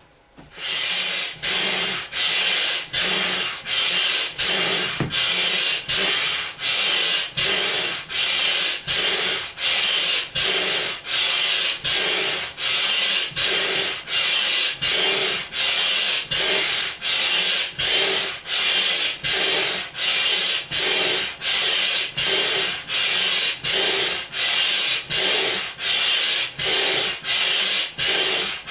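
Upright hand air pump worked in steady strokes, each stroke a rushing hiss of air pushed through the hose into an inflatable flamingo, about three strokes every two seconds; the pumping starts about half a second in.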